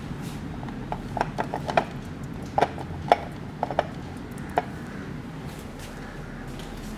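About ten sharp, hollow pops at an irregular pace from a barber's hands striking the head during an Indian head massage, bunched in the first few seconds, over a steady low hum.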